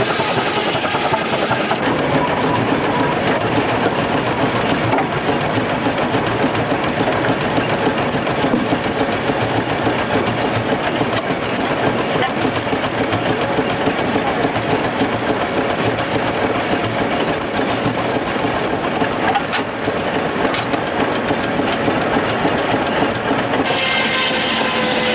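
Steady, loud mechanical din of a steam-powered sawmill: the stationary steam engine and its big flywheel running while a circular saw cuts through logs. The sound changes abruptly about two seconds in and again near the end.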